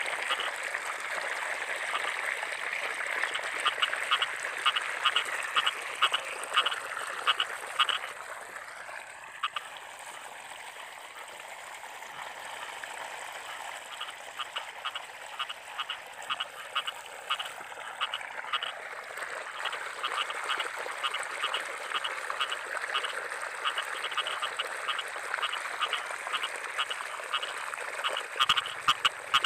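Frog calling in rapid trains of short croaking pulses over a steady hiss. The calls stop for several seconds about a third of the way in, then start again.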